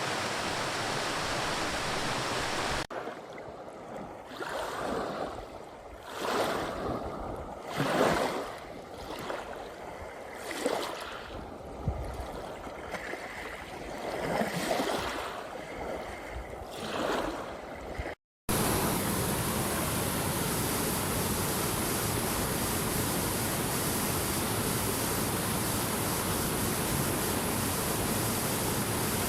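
Running water heard in separate clips. It starts as a steady rush. Then comes uneven surging and splashing that swells every second or two. After a short break it ends in a loud, even, steady rush like a waterfall.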